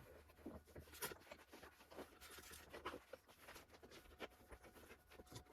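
Near silence with faint, scattered rustles and light clicks of hands handling materials at the bare car door.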